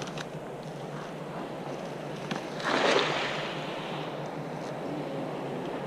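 Steady wind noise on the microphone, with one short, louder rush of noise about three seconds in.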